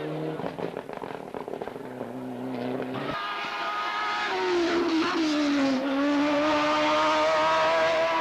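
Racing car engine on a hillclimb run: an uneven, choppy engine sound for about three seconds, then a clear engine note that dips in pitch in the middle and climbs again as the car accelerates, getting louder near the end.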